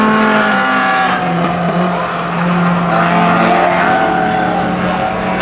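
Rallycross cars' engines running hard on the circuit, several engine notes overlapping, their pitch rising and dropping as the drivers accelerate, shift and lift.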